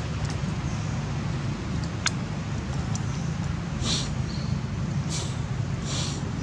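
Steady low outdoor rumble, with a sharp click about two seconds in and three short high-pitched chirps near the end.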